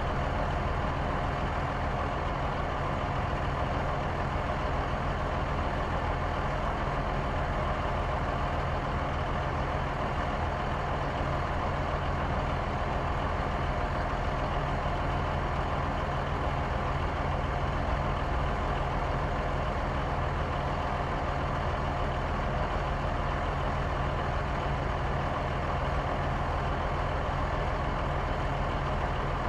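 Concrete mixer truck's heavy diesel engine running steadily, a low, even drone that does not change.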